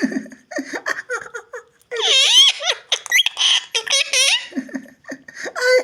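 High-pitched giggling laughter in several short fits, with a wavering pitch and breathy bursts.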